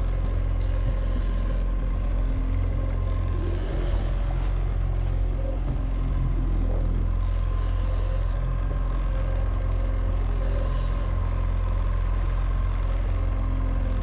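Boat's outboard motor running steadily at trolling speed: a continuous low rumble with a faint steady whine above it. A higher hiss comes and goes every couple of seconds.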